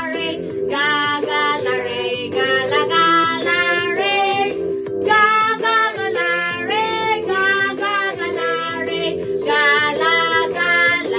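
Music with a high singing voice over a steady accompaniment.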